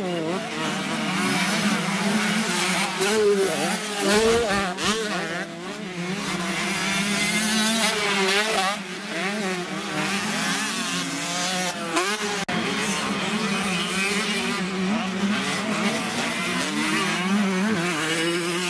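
Several enduro motorcycle engines running hard on a motocross track, their pitch rising and falling with throttle and gear changes, some revving close by and others further off.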